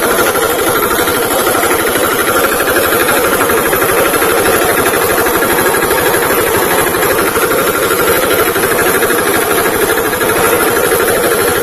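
VST Shakti tractor's diesel engine running steadily, with a loud, fast, even knock.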